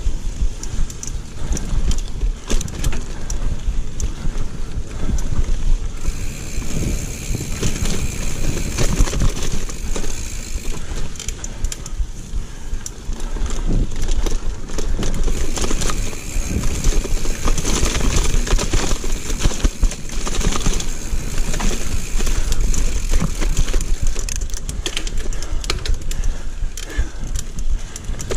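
Giant mountain bike ridden along a rooty dirt singletrack trail: a steady low rumble of tyres and wind on the camera's microphone, with constant clattering and rattling as the bike jolts over bumps. A higher hiss rises and falls in two stretches.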